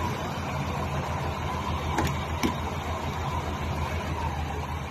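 Off-roader's carburetted petrol engine idling steadily under the open bonnet with an even low hum, running nicely. Two short clicks come about two seconds in, half a second apart.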